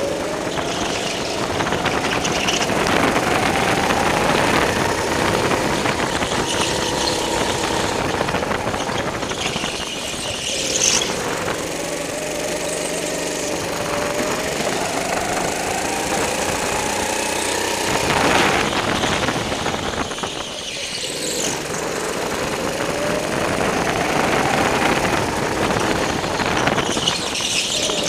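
Go-kart engine running under throttle. Its pitch climbs slowly over several seconds as the kart speeds up, then falls off three times as it slows for corners. Short tyre squeals come as it turns.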